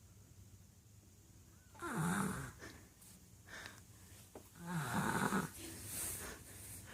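A sleeping young child snoring: two snores about three seconds apart, each lasting under a second.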